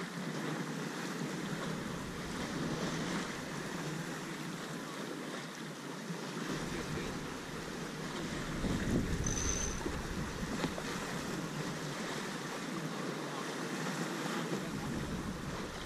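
Steady wash of water and wind aboard a J/111 racing sailboat under way. Wind buffets the microphone with a low rumble from about six and a half seconds to ten seconds in, and again near the end. A short high tone sounds about nine seconds in.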